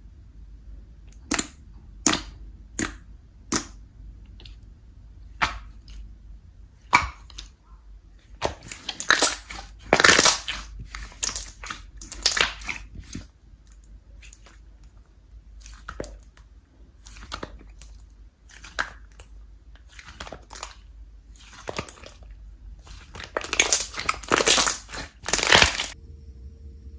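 Slime handled by hand: a few sharp pops about one every 0.7 s at first, then longer rough crackling and squishing bursts.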